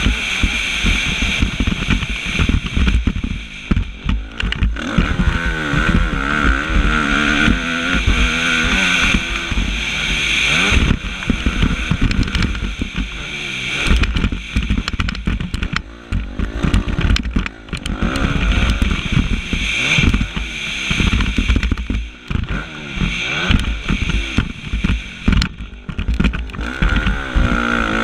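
Suzuki motocross bike's engine heard on board while racing, revving hard and then backing off again and again as the rider works the throttle and gears. The engine briefly drops off about four seconds in and twice more later on.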